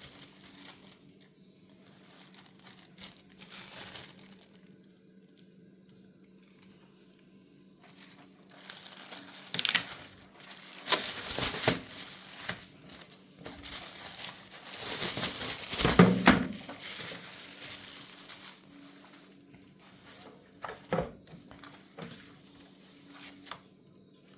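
Packing material being handled and crumpled during an unboxing, in irregular rustling bursts. It is faint at first, busy through the middle, and loudest about two-thirds of the way in, where there is also a low thump. A few short knocks come near the end.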